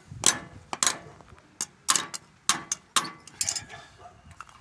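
Irregular sharp clicks and taps, about nine in a few seconds, from hand tools working the pin and cap on a lawn mower wheel's hub.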